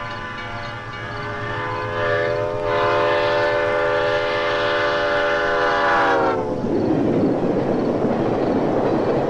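Diesel locomotive air horn sounding a steady chord that grows louder as the train approaches a grade crossing. About six seconds in the horn's pitch drops as the locomotive passes, and the horn stops. The train then rumbles by. A crossing-signal bell dings faintly at first.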